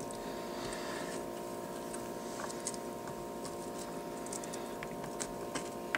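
Faint scattered crackles and light taps of raw onion slices being pulled apart into rings by hand on a cutting board, over a steady hum.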